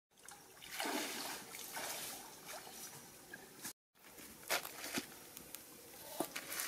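Stream water splashing and trickling as fish are washed by hand at the water's edge. After a cut, a few sharp clicks of a knife on whole fish lying on palm leaves.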